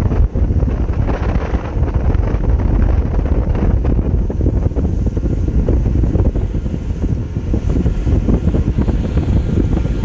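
Heavy wind buffeting the microphone aboard a boat running at speed across open water, a steady low rumble with the rush of water beneath it.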